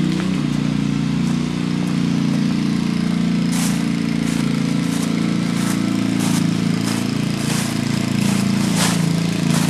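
Small engine of a four-wheeler ATV running steadily with slight shifts in pitch, along with scattered crackles of footsteps in dry leaves.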